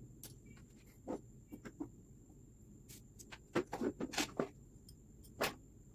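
Irregular clicks and knocks of fishing tackle being handled and worked on with hand tools, with a quick cluster of sharper taps in the middle and one more near the end.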